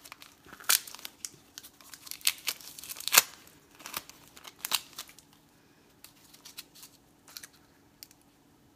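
Plastic wrapping crinkling and tearing as it is cut and pulled off a small lidded plastic cup, in a quick run of sharp crackles and snaps that thins out after about five seconds.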